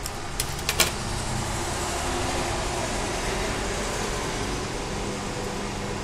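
Scissors snipping heat shrink tubing: a few sharp snips within the first second, over a steady background hum.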